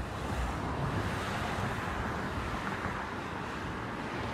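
A couple of cars passing on the road, a steady rush of tyre and road noise that swells about a second in and then slowly fades.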